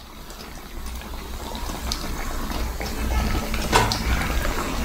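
Vadas deep-frying in a kadai of hot oil: a dense sizzling and bubbling that grows louder, with a couple of sharp clicks in the second half.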